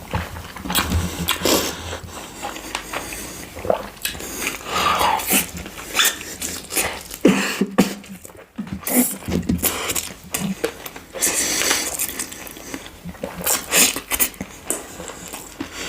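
Close-miked eating: irregular bites, chewing and crunching, with wet mouth sounds between them.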